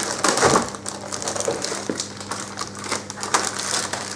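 Keyboard packaging being wrenched and torn open by hand: a run of irregular crinkling, crackling and snapping clicks.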